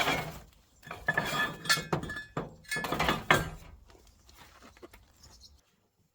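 Pieces of scrap metal stock clanking and clinking against each other as they are rummaged through and pulled from a pile, several ringing knocks in the first few seconds, then quieter shuffling.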